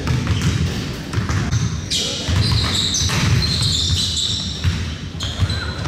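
A basketball bouncing on a gym floor during a game, with high squeaks through the middle of the stretch.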